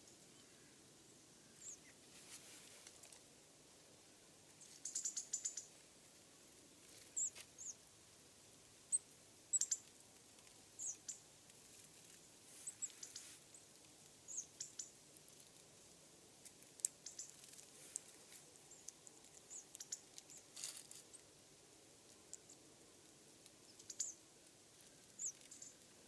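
Small songbirds giving short, high-pitched calls, scattered irregularly, with a few brief rustles between them.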